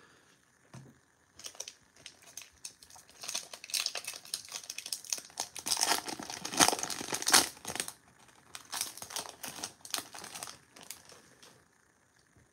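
Topps 2022 Series 2 hobby pack wrapper being torn open by hand and peeled back, a run of crinkles and rips that starts about a second and a half in, is loudest in the middle, and stops shortly before the end.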